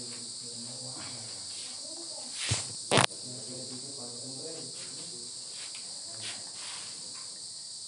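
Crickets chirring steadily in the background, with two sharp knocks about half a second apart near the middle, as of the recording phone being handled.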